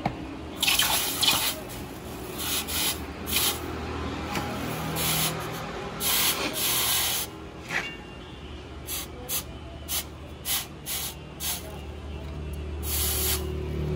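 Short scraping or rubbing strokes, irregularly spaced, about fifteen in all, with a steady low hum beneath.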